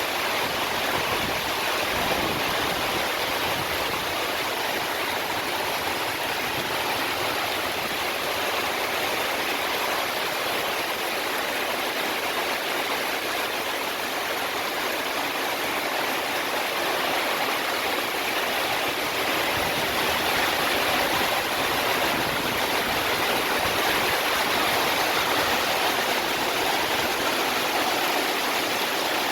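Heavy rain pouring down in a steady, dense hiss that never lets up.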